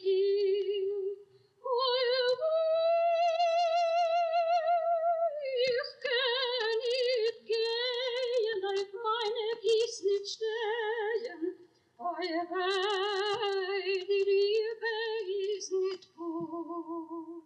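A female operatic voice sings a solo in Yiddish with wide vibrato and long held notes, pausing briefly between phrases about a second and a half, twelve and sixteen seconds in.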